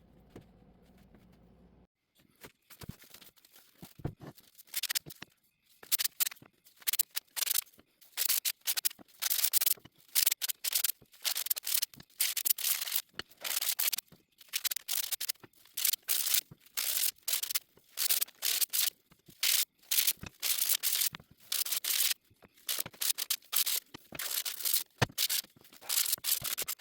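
Rhythmic hand strokes rubbing across wood, a sharp hissing scrape on each stroke, starting about two seconds in and going on at roughly one to two strokes a second.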